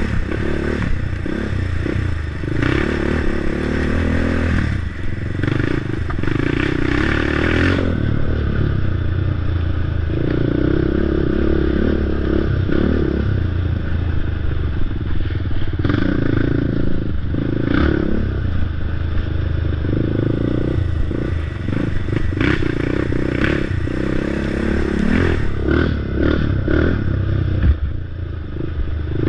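Crate late model race car's V8 engine running hard under racing throttle, its note surging and easing every few seconds, with many short knocks and rattles over it.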